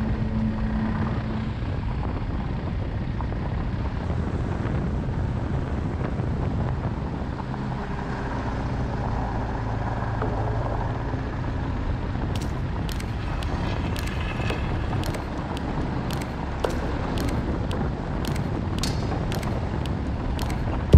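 Motorcycle engine running at road speed with wind noise on the microphone. About halfway through, a run of quick sharp clicks joins in, roughly two or three a second.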